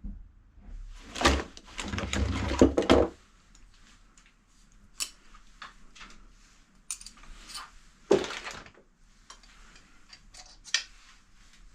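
Hand tools being rummaged through and handled: a burst of clattering and knocking about a second in, then scattered clicks and light knocks, with one heavier thunk about eight seconds in.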